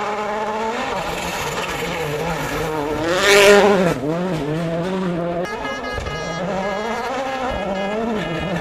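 Rally car engines revving hard and dropping in pitch through gear changes. One car passes close and loud about three seconds in. The sound cuts abruptly twice between different cars.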